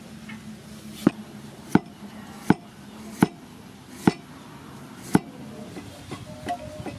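Cleaver slicing peeled ginger on a thick wooden chopping block: six sharp chops, roughly one every three-quarters of a second.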